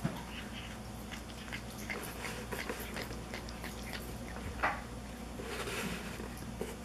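Cat chewing and tearing blades of cat grass, a run of small crunching clicks, with one louder click about two-thirds of the way through.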